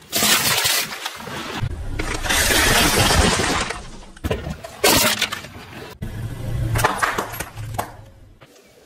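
A car tyre rolling over and crushing things in several quick cuts: oranges squashing and bursting, then plastic bottles full of water beads bursting and splashing, with a sharp crack about five seconds in.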